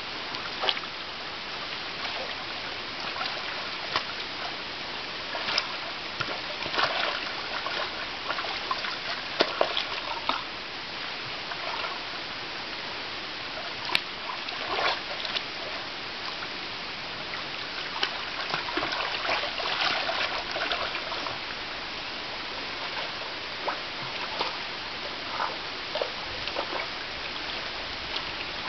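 Shallow running water with irregular splashes and sloshing as two European otters wrestle and roll in it. The splashes come in clusters, at times several in a second, over a steady trickle of the stream.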